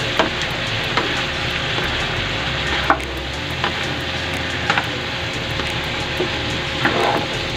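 Cauliflower florets and chicken liver sizzling in a frying pan while a spatula stirs them. Short knocks and scrapes of the spatula against the pan come every second or so over a steady hiss.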